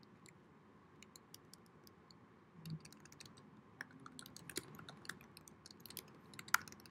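Faint typing on a computer keyboard: light key clicks, scattered at first and coming faster in the second half, with one sharper key strike near the end.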